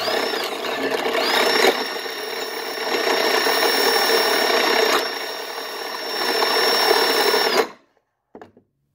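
Power drill spinning a piston ring filer's grinding wheel, grinding the end of a piston ring to widen its end gap. A steady high motor whine with grinding noise spins up, eases off briefly, spins up again and runs on, then cuts off suddenly about a second before the end.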